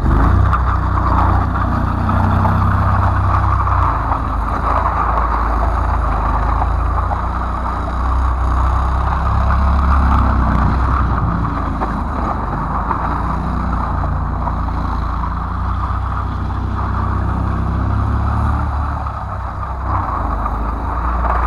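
A small vehicle engine running steadily and loudly, with a constant hiss over it and only slight changes in pitch.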